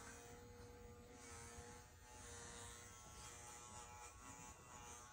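Electric toothbrush buzzing faintly and steadily during tooth brushing, its pitch wavering slightly as it presses on the teeth.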